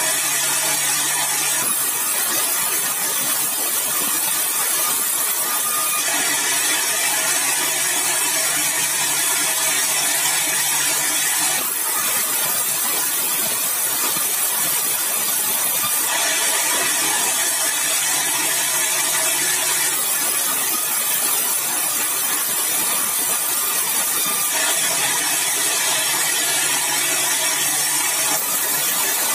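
Sawmill saw cutting yellow balau (bengkirai) hardwood: a loud, steady mechanical noise with a strong high hiss, its tone shifting every few seconds.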